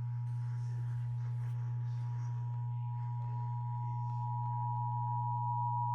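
Emergency Alert System two-tone attention signal: two steady pitches sounding together for about six seconds, then cutting off, over a steady low hum.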